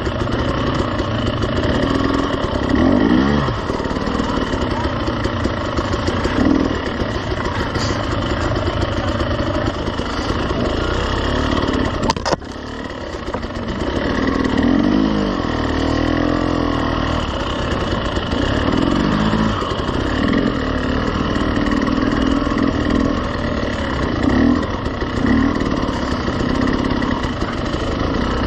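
KTM 300 two-stroke enduro bike engine running at low trail speed, with repeated short throttle blips that rise and fall in pitch. A sharp knock comes about twelve seconds in, and the engine briefly drops quieter after it.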